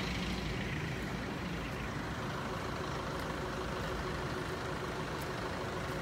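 Motor vehicle engine idling steadily: an even low rumble with a hiss over it.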